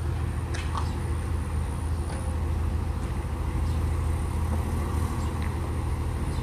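Ferry's engine idling with a steady low hum.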